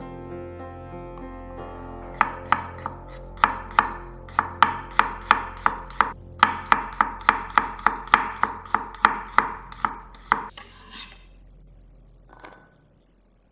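Chef's knife slicing garlic cloves on a wooden cutting board: a steady run of sharp chops, about three a second, starting about two seconds in and stopping a few seconds before the end, followed by a short swish.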